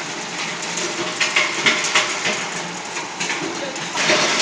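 Single-shaft shredder running, its rotor chopping electrical cable into granules: a steady mechanical din with irregular crackling snaps, louder near the end.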